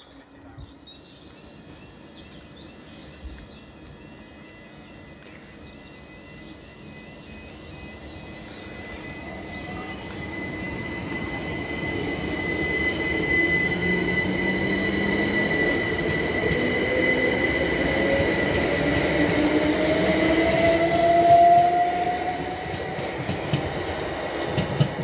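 Southern Class 377 Electrostar electric multiple unit running through the station, growing louder as it nears and passes. Its traction motor whine rises in pitch over several seconds over a steady high whine and wheel-on-rail noise, loudest about three-quarters of the way in.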